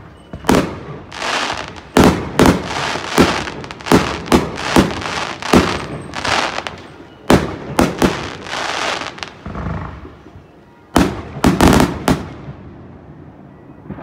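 Fireworks shells bursting overhead in a rapid, irregular run of loud bangs with hissing between them. There is a short lull about ten seconds in, then a last quick cluster of bangs that dies away.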